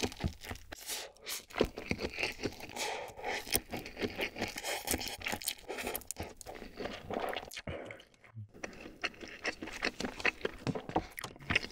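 Close-miked slurping and chewing of spicy instant stir-fried noodles, a dense run of wet mouth clicks and smacks with a short lull a little before 8 seconds.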